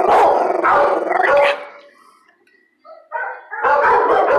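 Dog barking repeatedly in quick, loud barks. The barking breaks off for about a second and a half a little after one second in, then starts again.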